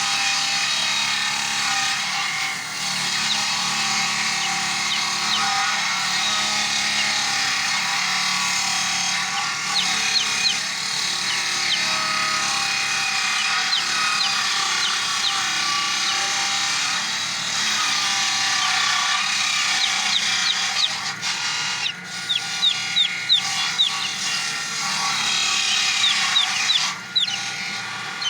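Chainsaw cutting through wood, running steadily, then turning choppy with short bursts in the last several seconds.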